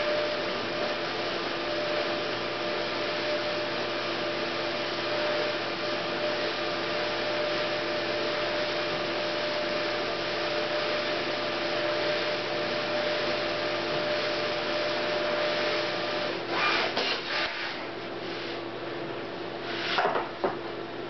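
Memjet SpeedStar3000 inkjet label printer running, feeding a continuous strip of printed labels with a steady whirr and a humming tone. About 16 seconds in, the feed stops and the higher hum drops out, leaving a lower hum, with a few short clicks and rustles.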